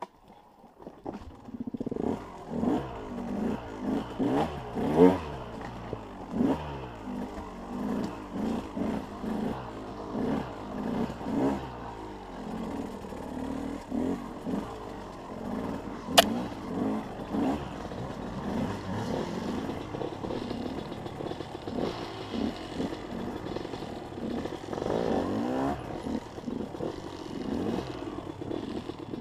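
Two-stroke enduro motorcycle engine ridden over a rough, rocky trail, revving up and dropping back again and again in short bursts of throttle, with clattering from the bike. A single sharp knock about 16 seconds in.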